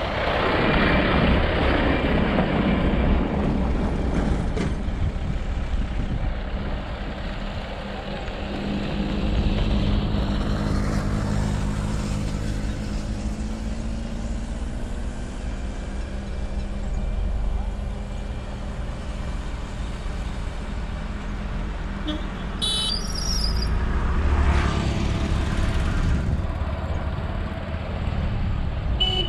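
Steady engine and road rumble from a motor vehicle travelling along a paved highway, with other vehicles passing, one swelling past about three-quarters through. A short high-pitched sound cuts in briefly shortly before it.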